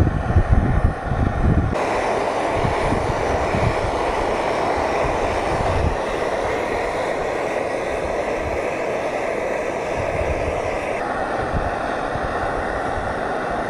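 Liquid-fuel camping stove burning steadily under a pot with a loud, even rushing hiss. Wind buffets the microphone with low rumbles in the first few seconds.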